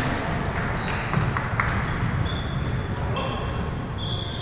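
Basketball game on a hardwood gym court: a ball bouncing as it is dribbled, and sneakers squeaking on the floor several times in short high chirps, mostly in the second half.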